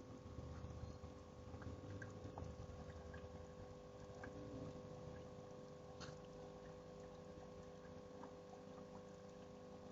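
Faint low rushing of a waterfall, with a steady hum and scattered small ticks over it.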